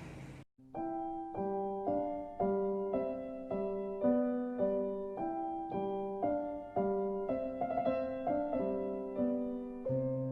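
Background music on a piano-like keyboard: a repeating pattern of notes and chords, about two a second, starting about half a second in after a brief silence.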